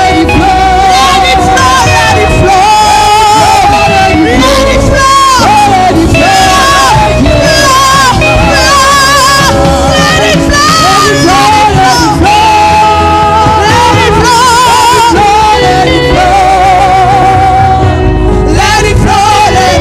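Worship singing with heavy vibrato over sustained keyboard chords and a steady bass.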